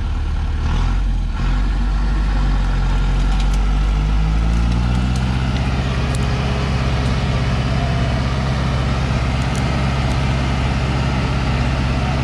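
Heavy loaded timber truck's diesel engine revving up about four seconds in, then holding high revs under load as the truck strains to pull its rear wheels through deep mud.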